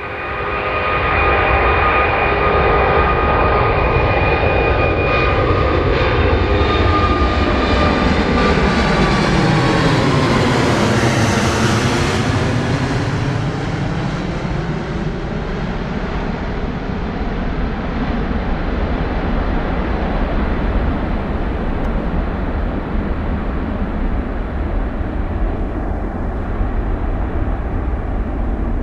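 Emirates Airbus A380's four jet engines climbing out after takeoff and passing overhead: loud jet noise with a high steady whine in the first several seconds, a phasing sweep as it goes over about eleven seconds in, then a rumbling roar fading slowly as it climbs away.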